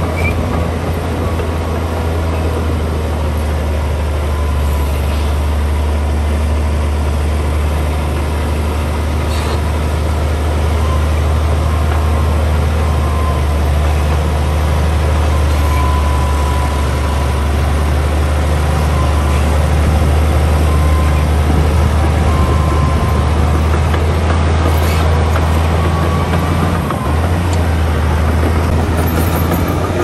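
LiuGong B160C crawler bulldozer's diesel engine running steadily under load as the machine pushes soil with its blade: a loud, even, low hum with mechanical noise over it.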